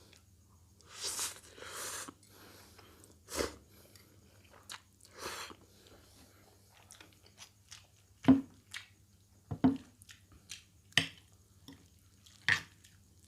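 A person chewing mouthfuls of fried instant noodles, with short wet smacking clicks that come more often in the second half and a couple of longer airy sounds near the start.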